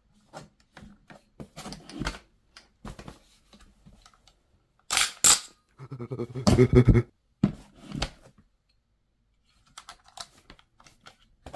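Irregular light clicks and clacks of an AR-15 rifle being handled, with two sharp clicks close together about five seconds in and two more single clicks a little later. A short low voice sound comes in between them.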